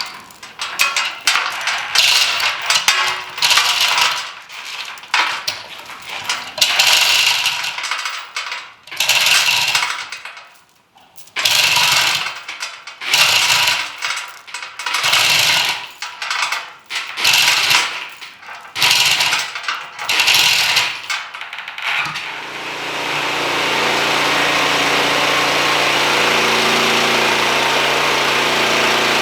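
Hand chain hoist (chain falls) being pulled to roll a log: repeated bursts of metal chain rattling, roughly one a second. About 22 seconds in, the sawmill's engine comes up and runs steadily.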